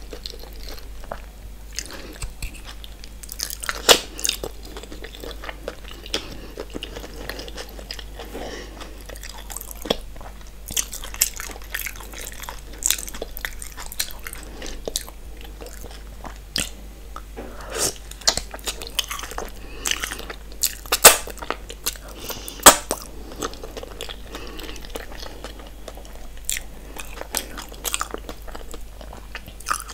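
Close-miked eating of a saucy seafood boil: wet chewing and mouth sounds, with mussels, potatoes and corn handled in sticky sauce. Scattered sharp clicks run through it, the loudest about four seconds in and twice more about two-thirds of the way through.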